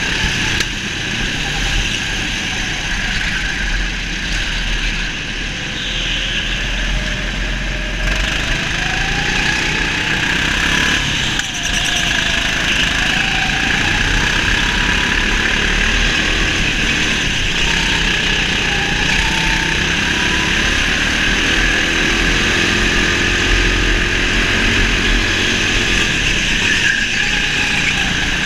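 Go-kart running at speed, its motor pitch rising and falling every few seconds as it accelerates out of corners and slows into them, heard from on board the kart.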